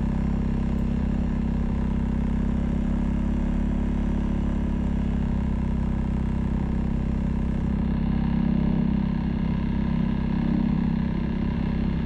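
Off-road vehicle engine running at a steady speed while riding over a snowy track, a constant even drone.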